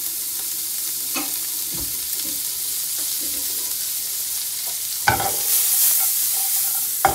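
Broccolini sizzling in melted butter in a non-stick frying pan, a steady high hiss. There are a few knocks of the pan, the loudest about five seconds in, and then the sizzle swells as the pan is tossed.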